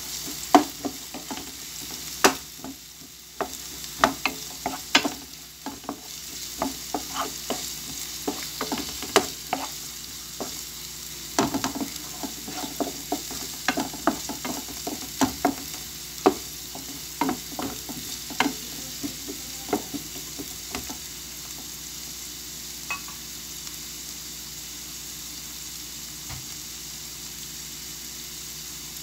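Sliced onions and garlic sizzling in hot oil in a frying pan while a spatula stirs them, knocking and scraping against the pan. The stirring stops after about twenty seconds and the steady sizzle goes on.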